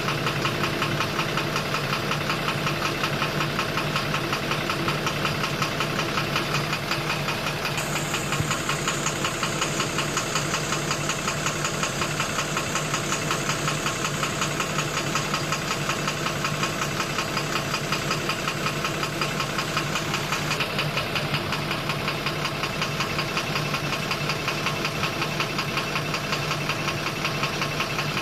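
12-M FE car engine running steadily with a rapid, even knocking from inside the engine. A high hiss joins about a third of the way through and stops about two-thirds through.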